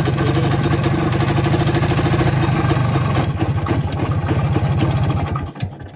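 IZh Planeta 3 motorcycle's single-cylinder two-stroke engine running in a rapid, even firing pulse as the bike rides over rough grass, then cutting out about five and a half seconds in.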